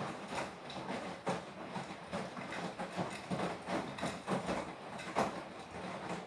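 Beko WTK104121W washing machine drum turning during the wash of a Quick 40 cycle: an irregular run of soft thuds and swishes as wet laundry and water tumble inside.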